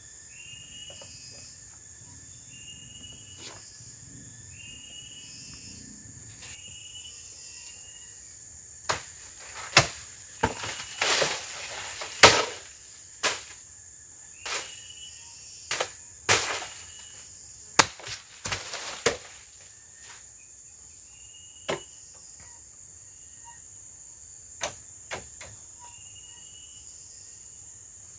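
Tropical forest ambience: a steady high insect drone, with short chirps repeating every second or so. From about nine seconds in, roughly a dozen sharp knocks and cracks come over some ten seconds.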